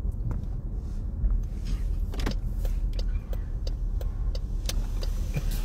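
Steady low road and engine rumble inside a moving car's cabin, with faint scattered clicks and ticks.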